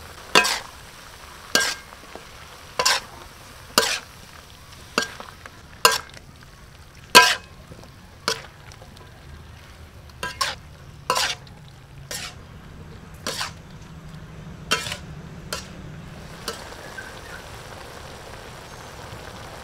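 Spatula knocking and scraping against an aluminium wok while squid and vegetables are stir-fried in sauce, about one sharp stroke a second over a steady sizzle. The strokes stop near the end, leaving only the sizzle.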